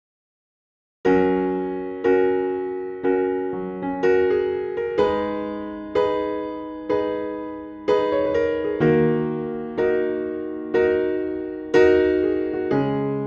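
Background music: an electric piano playing gentle chords, struck about once a second and left to ring out. It starts after about a second of silence.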